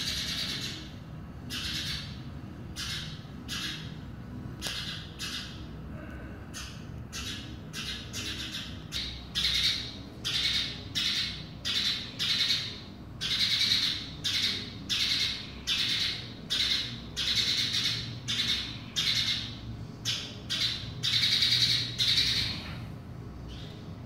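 Sparrow calling over and over in short, harsh chirps, about one or two a second, growing louder partway through and stopping near the end.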